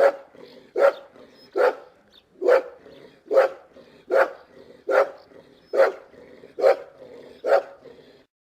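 Boxer dog barking: about ten single barks at an even pace, a little under one a second, stopping shortly before the end.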